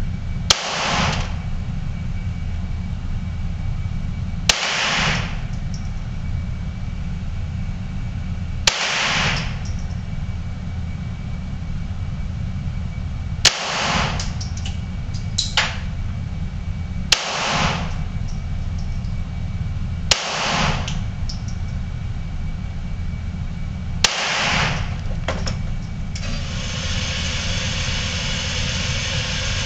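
Ruger Mark III .22 LR semi-automatic pistol fired in slow, aimed single shots from a bench rest: about seven sharp cracks spaced a few seconds apart, each trailing off for about a second. A steady low rumble runs underneath.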